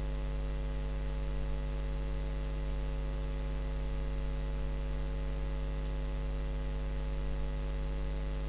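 Steady electrical mains hum with a faint hiss: a low drone with many even overtones, unchanging throughout.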